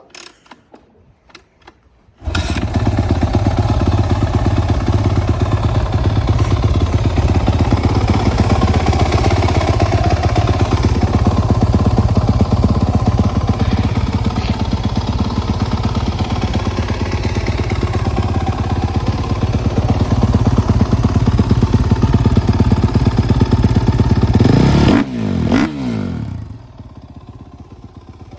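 Suzuki RM-Z450's single-cylinder four-stroke engine, stock exhaust, cold-started: it fires about two seconds in and runs steadily, is revved up and down twice near the end, then drops to a quieter level.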